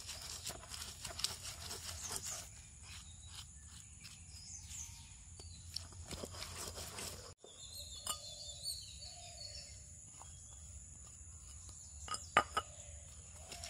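Stone roller scraping and crushing chillies and shallots on a flat stone grinding slab in repeated strokes, over a steady high buzz of insects. A few sharp knocks of stone near the end.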